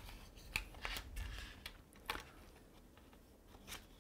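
Faint paper rustling and crinkling as a folded sheet of paper is handled and its fold pressed flat, in a handful of short crisp sounds that thin out in the second half.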